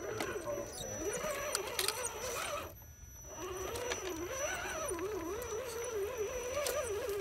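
Electric motor and geared drivetrain of an Axial SCX10 RC crawler whining, the pitch rising and falling with the throttle as it crawls over mud and rocks. The whine stops for about half a second near three seconds in, and small clicks of tyres and grit run through it.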